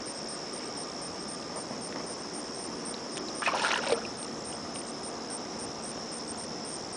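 A small alligator splashing once, briefly, about three and a half seconds in as it thrashes at the water's surface, over a steady chorus of insects.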